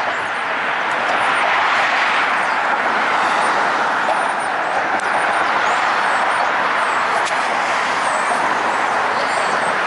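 Steady road traffic noise from cars on the bridge roadway below: tyres and engines blend into a continuous hiss.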